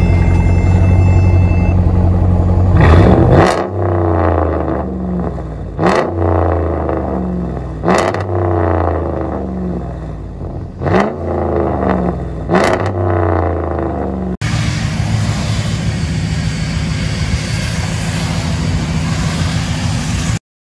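Ram 1500's 5.7 L Hemi V8 through a straight-piped exhaust (muffler and resonator deleted, factory catalytic converters kept), idling and then blipped hard five times, each rev rising sharply and falling back. After an abrupt cut, the engine runs steadily under a loud hiss of tyres on wet pavement.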